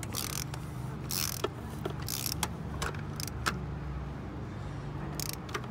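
Ratchet wrench clicking in short bursts as its handle is swung back and forth to tighten a bolt, over a steady low hum. The clicks come several a second through the first three seconds or so, pause, then come twice more near the end.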